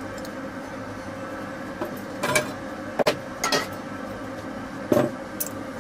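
A handful of sharp knocks and clanks from the red sheet-metal gas-cylinder stand being picked up and handled, some with a brief metallic ring, over a steady background hum.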